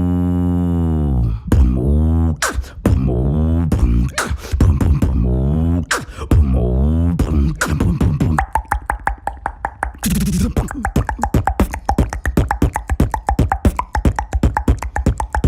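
A beatboxer imitating an animal with his mouth and throat: deep, throaty vocal swells that rise and fall in pitch for about eight seconds, then a fast run of clicks and pops.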